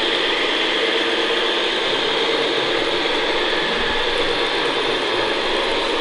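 Scale RC construction models running: the geared drivetrains of a loaded RC dump truck with trailer and a tracked RC bulldozer, giving a steady mechanical gear noise.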